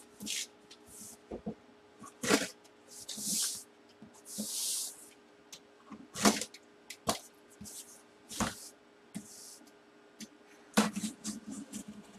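A cardboard shipping box being handled and opened: scattered knocks and taps with several short scraping hisses, over a faint steady hum.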